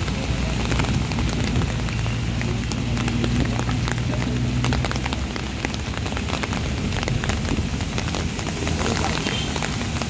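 Heavy rain falling on a wet road and puddles, with many sharp close drop hits. Under it runs a low hum of passing traffic, strongest in the first half.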